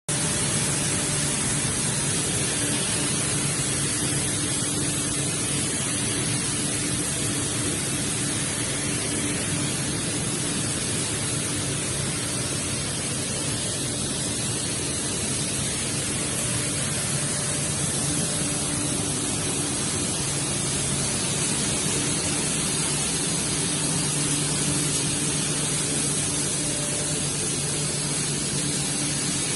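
PET plastic bottle washing line running: a steady wash of machine and water noise with a low motor hum underneath.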